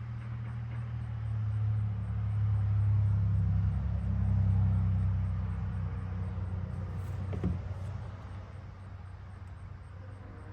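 A motor vehicle's engine runs with a low rumble that swells over the first few seconds and then slowly fades. There is a single short knock about two-thirds of the way through.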